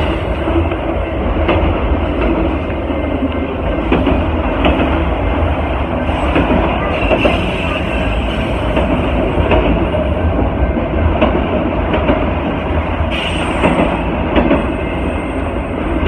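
Freight train of autorack cars rolling past close by: a loud, steady rumble of wheels on rail with occasional clicks at rail joints and a faint high wheel squeal at times.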